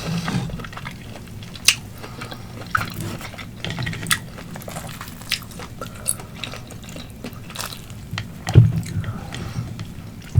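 Close-miked chewing of grilled octopus: wet, sticky mouth clicks and smacks at an irregular pace, with a couple of louder bites.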